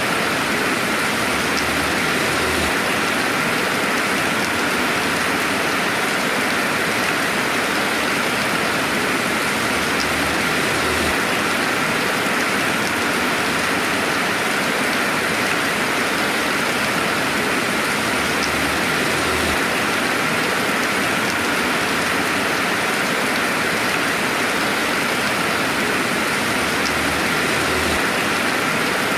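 Steady, even rainfall: a dense hiss of rain with no thunder, unbroken and without lulls.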